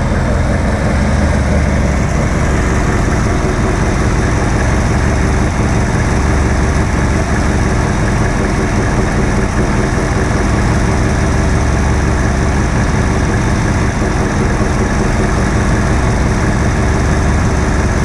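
1984 Ford LTD Crown Victoria's 302 V8 engine idling steadily, just after being started.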